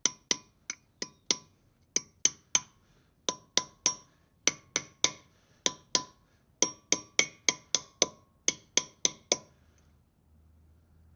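Hammer striking an old bearing race used as a drift, driving a new grease seal into a Land Rover Defender 90 wheel hub: about thirty sharp metal-on-metal blows in quick runs, each ringing briefly, stopping near the end.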